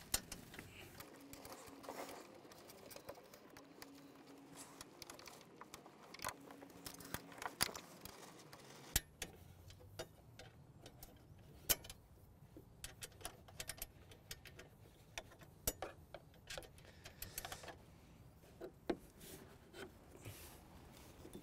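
Scattered light metallic clicks and taps as small bolts are fitted and nipped up with an Allen key on a mower's handlebar bracket.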